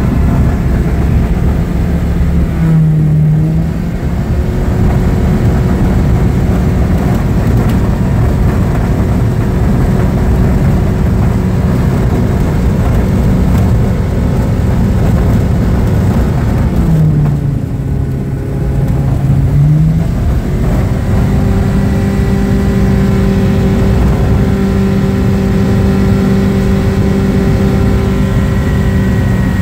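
Homebuilt single-engine light aircraft's engine and propeller running steadily, heard from the cockpit. The engine note drops briefly about three seconds in and again for a few seconds around the middle, then comes back up to its steady pitch.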